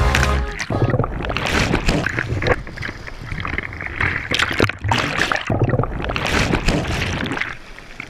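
Breaking surf washing over the microphone at the water's surface: churning whitewash, rushing and splashing, with many sudden splashes, dying down near the end.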